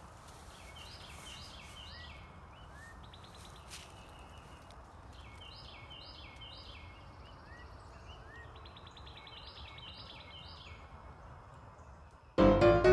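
A songbird singing a short phrase of three or four quick notes, repeated several times, with a faint outdoor hiss behind it. Music starts suddenly near the end.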